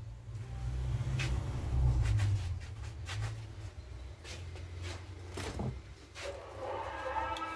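Low rumble with scattered clicks and knocks from a man getting up off a workshop floor and moving close to the microphone. Music comes in about six seconds in.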